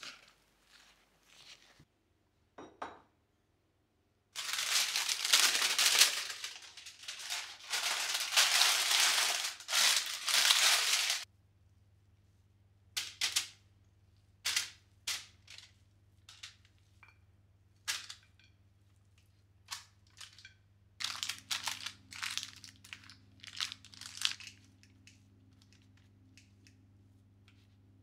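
Crinkling and crunching from thick carrot-cake batter and the crumpled parchment paper lining a baking tin as the batter is worked and tipped in. A dense stretch of crinkling a few seconds in lasts about seven seconds, followed by scattered short scrapes and taps, with a faint low hum underneath in the second half.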